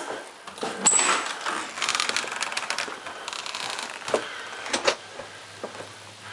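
A door being opened and let shut: a latch click with a short high squeak, then a run of rattling clicks. A few separate knocks follow, likely footsteps.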